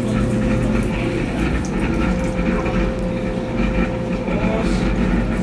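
Brastemp Tira Manchas Pro 12 kg top-loading washing machine running, a steady mechanical rumble with a constant whine held on one pitch.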